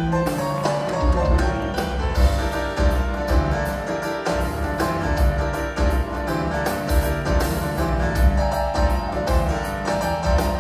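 Live rock band playing, with piano out front over bass and drums.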